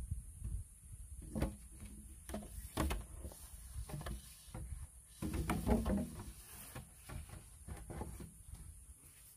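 A long bamboo pole pushed through square-cut holes in standing bamboo posts, knocking and scraping against the post walls in a series of irregular knocks, busiest about five to six seconds in.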